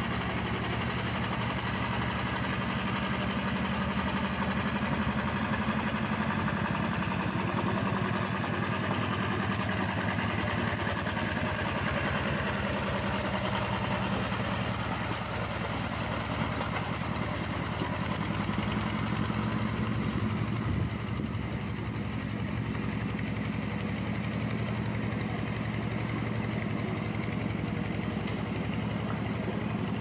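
Two-wheel hand tractor's single-cylinder diesel engine running steadily under load while it puddles a flooded rice paddy. It is a little louder in the first dozen seconds.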